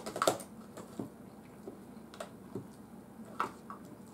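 Eating sounds: a metal fork picking and scraping at food in an aluminium foil takeaway tray, a handful of short clicks and scrapes. The loudest comes about a quarter-second in, over a faint steady hum.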